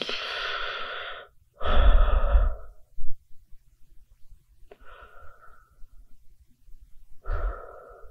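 Human breathing: four separate loud breaths, a few seconds apart. The second is the loudest and has a low rumble under it.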